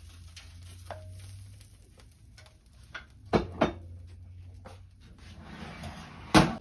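Metal oven rack and roasting tray clattering as they are handled: a light ringing tap about a second in, two sharp clacks about halfway, a brief scrape, and the loudest clank near the end as the rack is pushed back into the oven.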